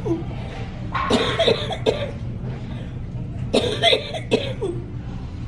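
A woman with cystic fibrosis coughing in two fits, each a quick string of coughs, the first about a second in and the second about three and a half seconds in.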